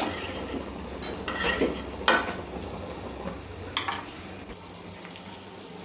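A spatula stirring thick curry in a non-stick kadai, knocking and scraping against the pan four or five times.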